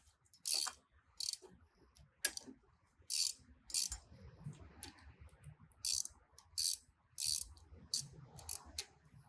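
Socket ratchet clicking in about ten short bursts at uneven spacing as the bolts on a log splitter's valve cover are tightened with a 12mm socket.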